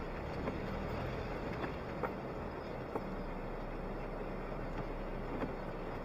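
Suzuki Jimny's engine running steadily, heard from inside the cabin, with a few faint ticks scattered through.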